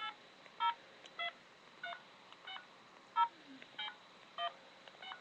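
Touch-tone phone keypad beeping as a number is keyed in: about nine short dual-tone presses, roughly one every half second or so, entering the recipient's number at a voicemail system's prompt.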